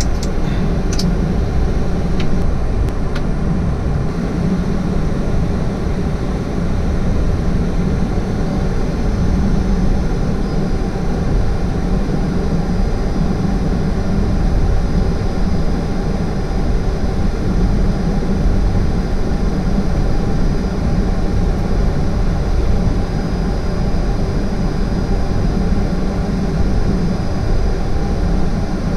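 Steady cockpit noise of a twin-engine jet airliner taxiing: a low engine and air-conditioning rumble that holds even throughout. A few faint clicks come in the first few seconds, and a thin high whine appears about a third of the way in.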